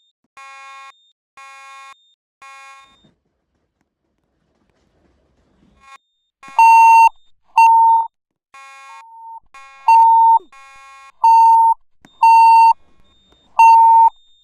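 Electronic beeping of a voice evacuation fire alarm system sounding between its spoken messages. Three evenly spaced beeps about a second apart, a pause of about three seconds, then a louder run of short beeps at a slightly lower pitch from about six and a half seconds in, alternating with fainter beeps.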